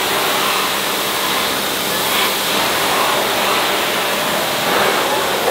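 Pressure washer spraying a jet of water against a car's underside and engine bay, a steady hiss.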